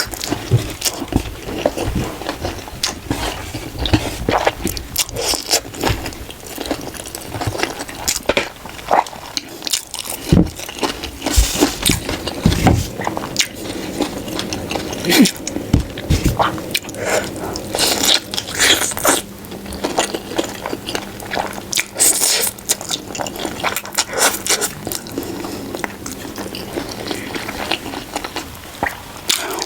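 Eating sounds: a utensil scraping a bowl, with bites and crunchy chewing in irregular clicks and scrapes.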